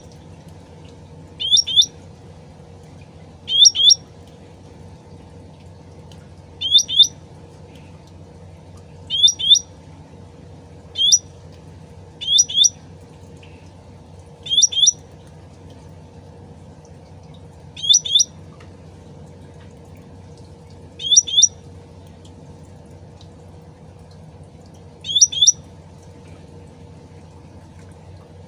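A cucak rante (cucak ranting) bird calling: a short, loud call of two or three quick upswept notes, repeated about every two to three seconds.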